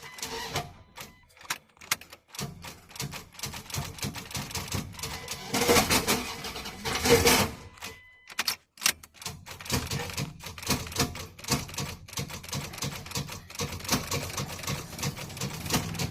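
Rapid, irregular metallic clicking and clanking of hand tools working on a Dodge 5.9 engine, with a louder rattling stretch about six to seven seconds in. The engine is seized and will not turn.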